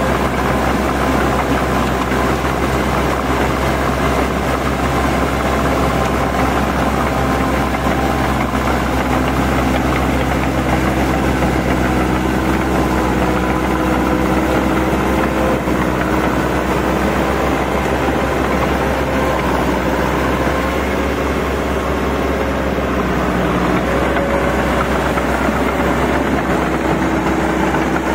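Massey Ferguson 185 tractor's four-cylinder diesel engine running steadily under load, pulling a rear rotary tiller through wet paddy mud.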